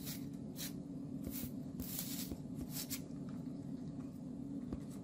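Knife splitting scallion stalks lengthwise on a bamboo cutting board: light, scratchy slicing strokes about every half second for the first three seconds, over a steady low hum.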